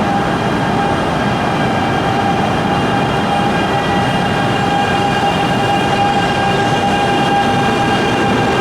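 Shinkansen train giving a steady electrical whine of several held tones over a constant rumble of running noise.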